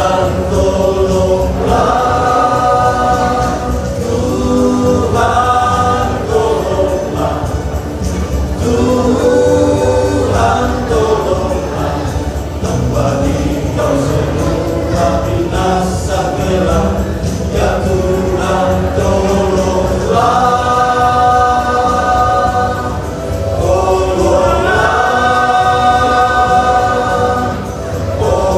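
Choir singing a hymn in several voice parts, long held chords that swell and ease off between phrases.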